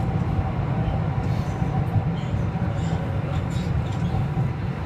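Beijing Subway Line 6 train heard from inside the carriage as it runs into a station: a steady low rumble of wheels and running gear with a faint steady whine above it.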